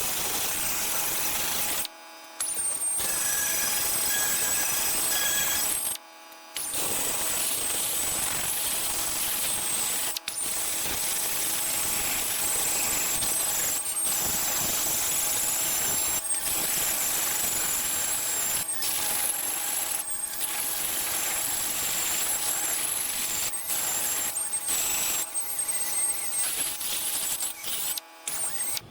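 Angle grinder with a diamond wheel stripping paint from a steel fender ahead of welding: a continuous high-pitched grinding whine that sags briefly as the wheel bites, with a few short breaks.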